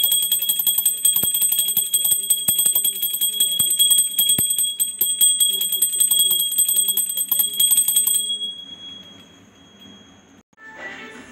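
Brass puja hand bell rung rapidly and without pause during aarti, stopping about eight seconds in. Recorded devotional music starts near the end.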